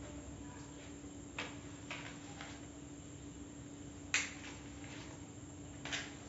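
A handful of short, sharp clicks and taps, the loudest about four seconds in, over a faint steady hum.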